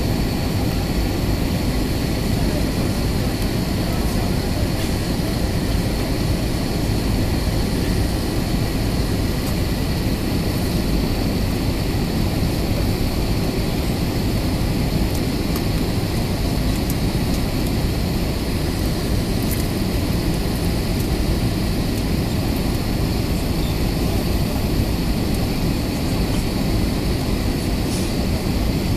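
Steady cabin noise of an Airbus A320neo airliner in flight on approach, heard from a seat over the wing: a constant engine and airflow rush with a thin, steady high whine above it.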